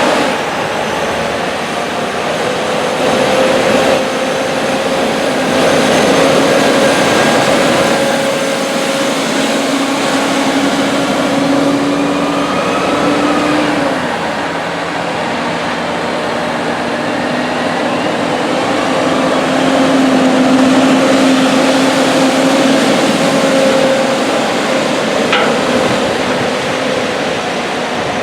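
Large farm tractor's diesel engine running hard under load, its pitch sagging about halfway through and then rising again.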